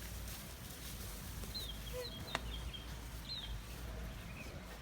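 Birds chirping: a few short, high chirps over a steady background hiss, with a single sharp click a little past two seconds in.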